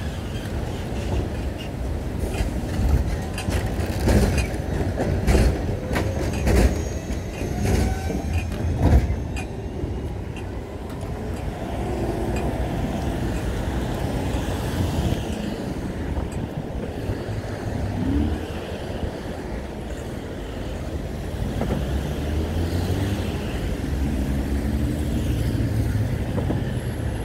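Wind buffeting a chest-mounted camera's microphone on a moving bicycle, a steady low rumble, with the bike rattling and knocking over rough pavement several times in the first nine seconds.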